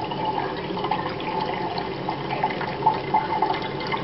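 A thin, steady stream of salt water poured from a glass measuring cup, splashing into a kitchen sink, with little bubbling blips through the steady splash.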